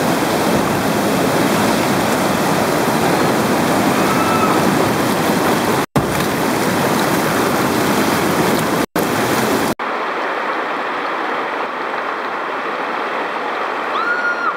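Whitewater of a mountain river rapid rushing over boulders, a loud steady wash of water. It drops out for an instant twice, about six and nine seconds in, and after about ten seconds it is duller and thinner.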